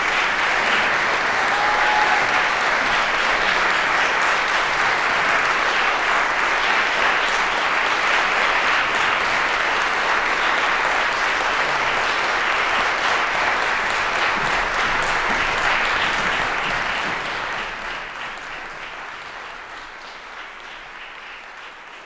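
Audience applauding steadily, the clapping dying away over the last few seconds.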